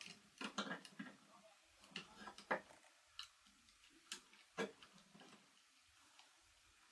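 Faint, irregular clicks and small knocks from hands working a plastic two-way light switch: wires being pushed into its terminals and a screwdriver turning the terminal screws. The clicks come thickly for the first few seconds, then singly.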